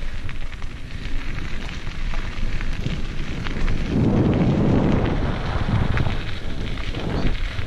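Mountain bike riding fast down a gravel trail: wind buffeting the microphone, tyres crunching on the gravel and the bike rattling with sharp clicks over bumps. The wind rumble is loudest about four to five seconds in.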